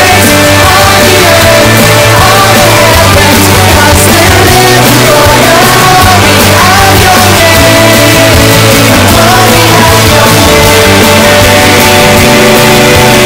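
Background music: a rock-style Christian worship song, full band with a steady bass and a wavering lead melody line.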